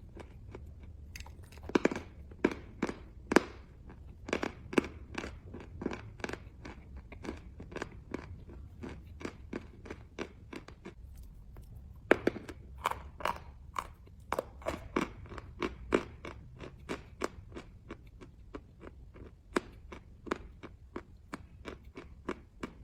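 Close-miked crunching of chalk being bitten and chewed: an irregular run of sharp, crisp crunches, two or three a second, with a few louder bites about two seconds in and again about twelve seconds in.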